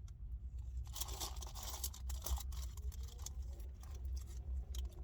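Rustling and scraping of something being handled close to the microphone, starting about a second in with many short crackles, over a low steady hum.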